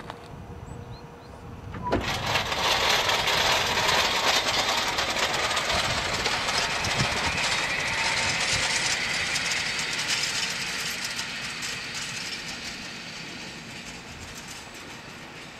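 Furka-Oberalp passenger train starting off from the station: a sudden rush of running noise about two seconds in, then the coaches rolling along the rails, slowly fading as the train draws away.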